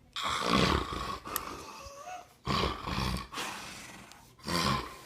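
A man snoring loudly in his sleep: three rattling snores about two seconds apart, each fading into a hissing breath.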